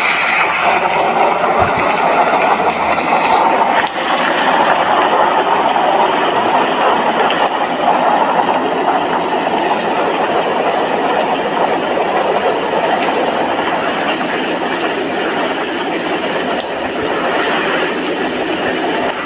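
Steady rain falling, heard from an apartment window: a loud, even, continuous hiss.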